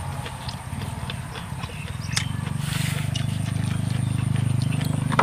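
Chewing and crunching of food close to the microphone, with small wet mouth clicks. A low, steady hummed "mmm" comes in about two seconds in and swells toward the end.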